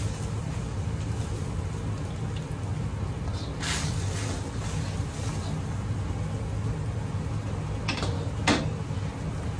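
Restaurant gas wok burner running with a steady low rush under a wok of boiling liquid, while a ladle stirs it. The ladle knocks against the wok about four seconds in and twice near the end, the last knock the loudest.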